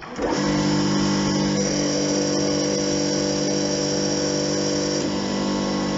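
Electric-motor-driven hydraulic pump of a forklift lift trainer starting up and running with a steady, loud hum, supplying oil through the directional control valve to extend the lift cylinder. The hum starts about a third of a second in, and its tone shifts slightly twice.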